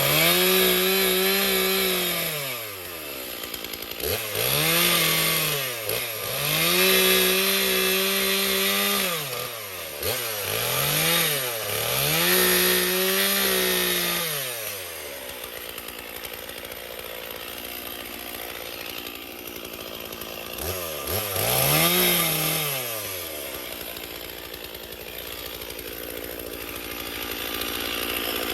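Chainsaw revving up to full throttle and dropping back to idle, over and over, while cutting up a fallen branch: four bursts in the first half, then idling, one more short burst a little past the middle, and idling again to the end.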